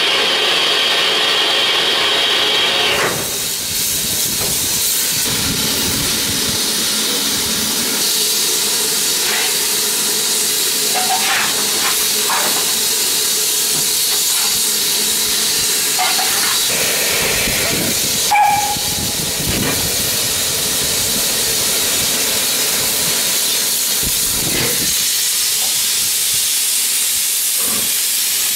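Class 9F 2-10-0 steam locomotive standing with steam hissing steadily. One strand of the hiss cuts off about three seconds in, and there is a brief sharp sound about eighteen seconds in.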